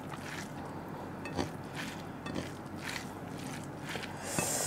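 Fingers kneading and mixing rice with chicken curry gravy on a plate: soft wet squishes with scattered faint clicks, and a short hiss near the end.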